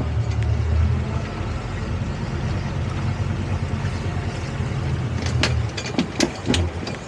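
A towboat's engine idling with a steady low rumble. A few sharp clicks come about five and a half to six and a half seconds in.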